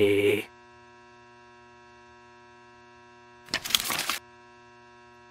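Steady electrical mains hum with a short, ragged burst of noise lasting under a second about three and a half seconds in. A spoken word trails off right at the start.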